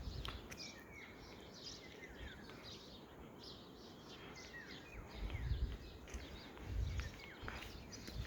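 Several small birds chirping and twittering, many short calls overlapping. Two low thumps about five and seven seconds in.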